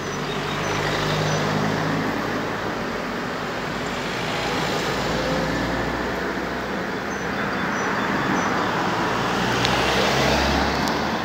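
Steady road-traffic noise, a broad hiss and low rumble that swells and eases slightly.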